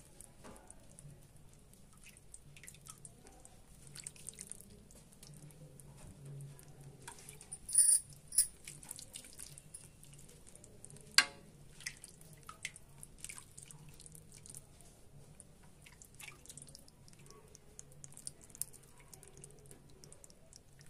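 Steel ladle spooning water over steamed dhokla in a steel tin: faint drips and trickles, with a few sharp clinks, the loudest about eight and eleven seconds in. A faint low hum lies underneath.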